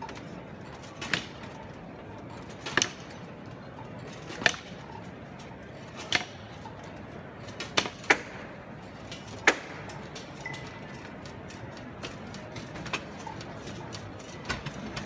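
Sharp knocks or clacks at a slow, fairly even pace of about one every second and a half, fainter in the last few seconds, over a low steady hush.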